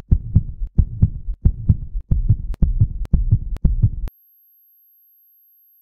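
A heartbeat sound effect: low double thumps, quickening slightly, with sharp clicks on the last few beats. It cuts off suddenly about four seconds in, leaving near silence with a faint high tone.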